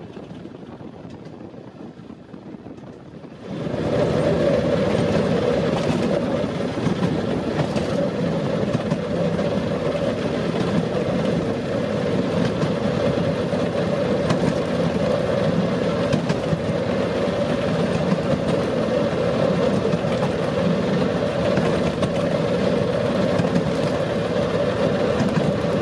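Railroad speeder (motorized track car) running along the track: its motor is faint at first, grows sharply louder about three and a half seconds in, then runs steadily with occasional clicks from the wheels on the rails.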